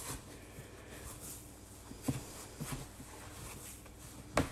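Hands kneading potato gnocchi dough on a floured benchtop: faint pressing and rubbing with a few soft thumps, the loudest a sharper knock near the end.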